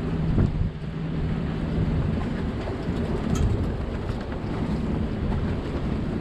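Strong wind buffeting the microphone aboard a sailboat, a dense low rumble with a steady low hum that stops about two seconds in.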